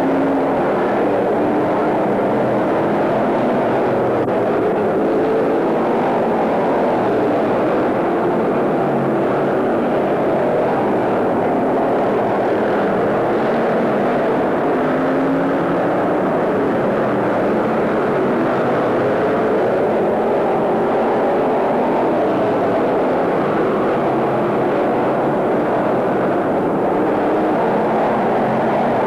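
A field of stock car engines running hard at race speed, a steady, unbroken din with engine notes rising and falling as the cars pass.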